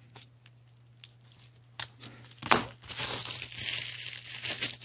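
A sharp tap about halfway through, then clear plastic coin-sleeve packaging crinkling and crackling as silver coins are handled.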